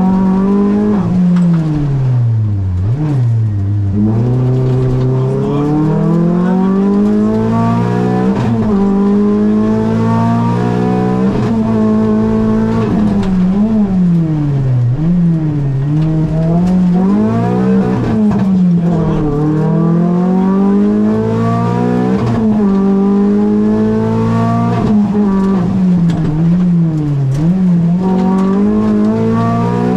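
Renault Clio rally car's engine heard from inside the cabin at full stage pace. The revs climb through the gears with quick drops at each upshift, and fall back repeatedly for lifts and downshifts before rising again.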